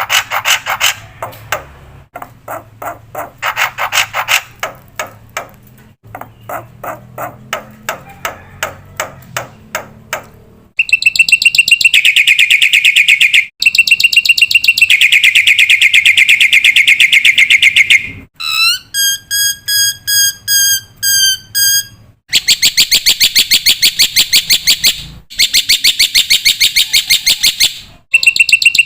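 Recorded black-winged myna (jalak putih) song. It opens with fast, chattering pulse series, then switches to loud, rapid trills. About 18 seconds in comes a short run of clear, evenly repeated whistled notes, and then the loud trills return. The segments start and stop abruptly, as in an edited song track.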